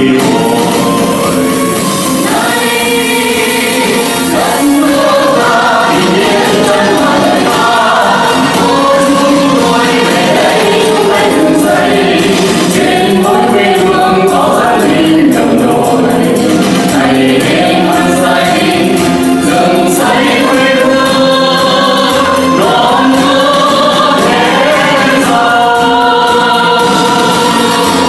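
Mixed male and female vocal group singing a Vietnamese song together into microphones, amplified, with music behind the voices.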